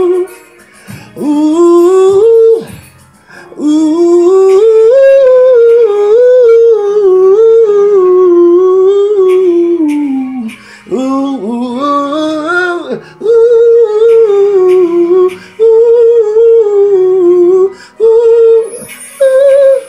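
A man singing an R&B chorus in a high voice, drawn-out wordless runs that slide up and down between notes, in several long phrases with short breaks for breath.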